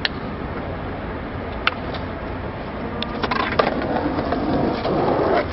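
Skateboard wheels rolling on pavement, the rumble growing louder over the last couple of seconds as the board approaches, over a steady city-street background with a few sharp clicks.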